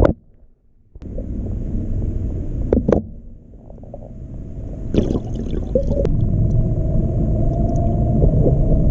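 Muffled underwater rumble of water churning against the camera housing, with sharp short pops of an airsoft pistol fired underwater about three and five seconds in. The rumble grows louder after the second pop.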